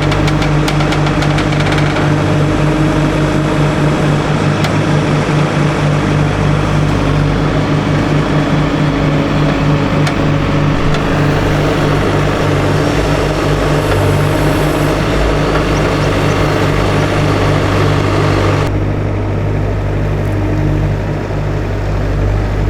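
A large engine running steadily, a loud low even hum with a noisy wash over it. The upper hiss drops away about nineteen seconds in while the low hum carries on.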